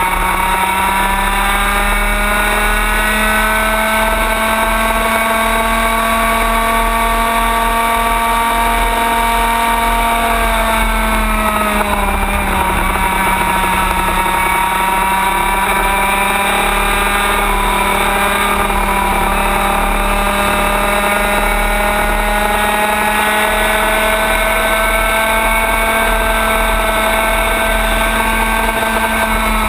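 Racing kart engine running at high revs on track, with a steady pitch. About twelve seconds in the pitch drops as the throttle eases, then climbs slowly back up as it accelerates again.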